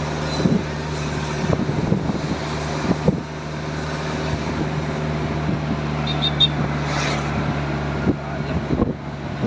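A steady motor hum with wind noise on the microphone and a few scattered knocks.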